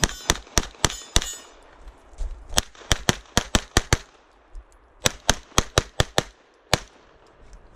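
Semi-automatic pistol fired in quick strings of shots, about three to five a second, in three bursts with short pauses between them and a last single shot near the end. A metallic ring follows the first few shots, typical of hits on steel plates.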